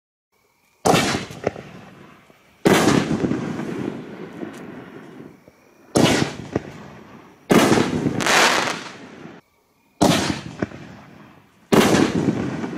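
Consumer artillery shells from a six-shell reloadable kit bursting in the air: six loud bangs about one and a half to three seconds apart, each dying away over a second or two.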